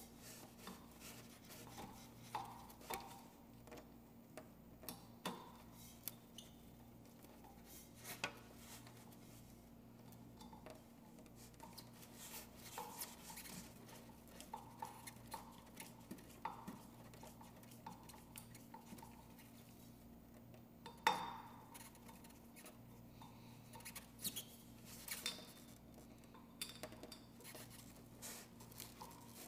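Scattered light metallic clicks and clinks of screws, a screwdriver and the ceiling fan's metal housing parts being handled and fitted, with one louder clank about 21 seconds in, over a faint steady low hum.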